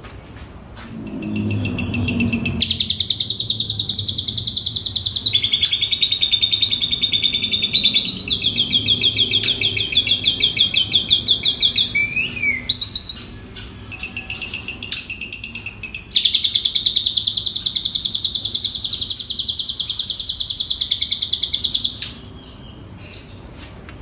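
Asian pied starling (jalak suren) singing: long runs of rapid, repeated high notes, with a quieter break in the middle before a second long run that stops near the end.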